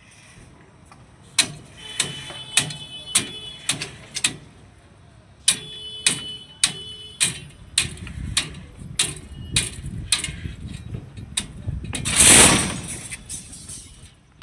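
Hammering on construction work: sharp strikes about two a second in two runs, several with a metallic ring. A louder rushing, scraping noise follows near the end.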